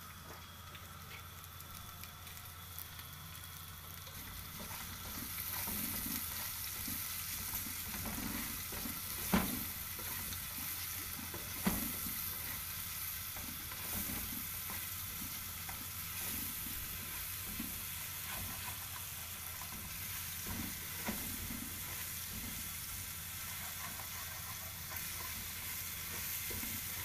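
Chopped onion and crushed garlic sizzling in hot oil in a steel pot while being stirred; the sizzle grows louder about five seconds in. A couple of sharp knocks against the pot stand out midway, the loudest sounds here.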